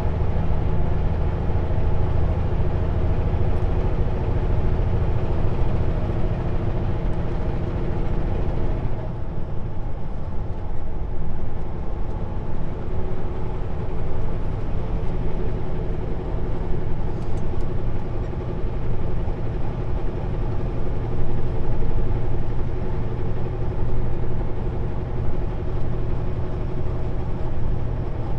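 Inside the cab of a Kenworth W900L semi truck on the move: the diesel engine drones steadily with road noise. About nine seconds in the higher hiss drops away and the low engine note carries on.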